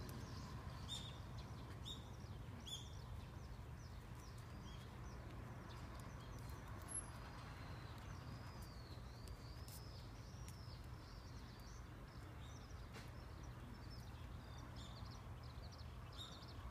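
Small birds chirping on and off with short, thin, high calls, including a run of quick rising-and-falling calls midway, over a faint steady low background hum.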